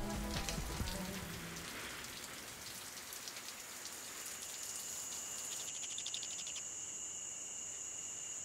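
Steady patter of rain under the closing logos, with a fast high trill around the middle and a thin, high, steady tone coming in about two-thirds of the way through.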